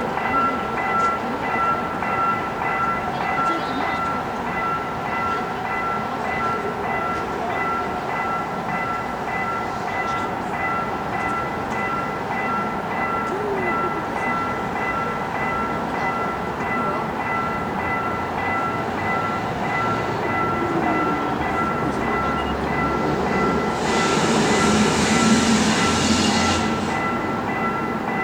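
Level crossing warning bell ringing steadily as a rapid repeating tone, over the running noise of a train. About 24 seconds in, a louder rushing hiss lasts about three seconds.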